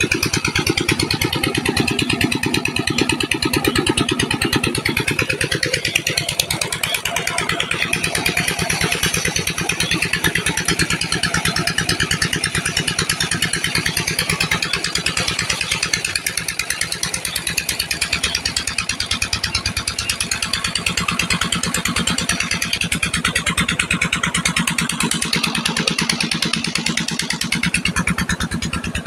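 Irrigation water gushing from a pump's outlet pipe and churning into a brick tank, over a pump engine running steadily with a rapid, even beat and a low hum.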